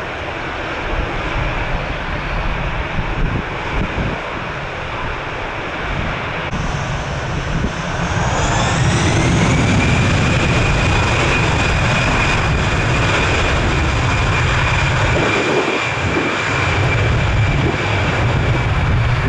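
Airbus A320-family airliner's jet engines spooling up for takeoff. A whine rises about seven to nine seconds in, then holds steady over a low rumble at takeoff thrust.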